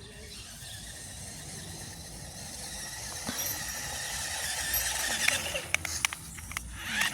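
Toy remote-control rock crawler truck's small electric motor and gears whining as it drives, growing louder until about five seconds in, then dropping away.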